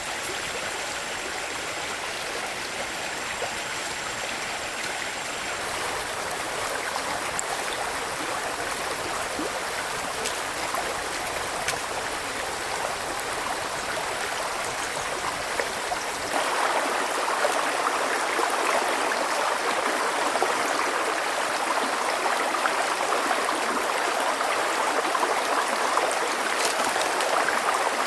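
Water flowing in a stream, a steady rushing and gurgling. It shifts abruptly about five seconds in and again about sixteen seconds in, getting louder and brighter after the second change.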